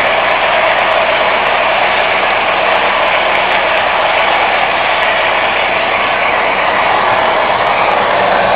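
O-gauge model train running on its track, heard close up from a camera riding on the train: a steady, loud rolling rattle and whir of wheels and motor, with scattered small clicks.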